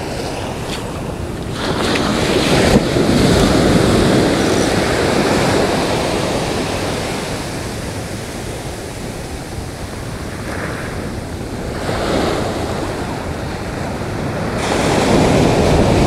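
Ocean surf washing onto a sandy beach, a steady rush that swells louder as waves break about two seconds in, around twelve seconds and near the end. Wind buffets the microphone.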